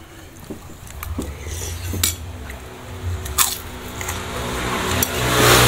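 A metal spoon clinks and scrapes against a ceramic plate a few times while a man eats. Near the end a passing vehicle's engine swells up and becomes the loudest sound.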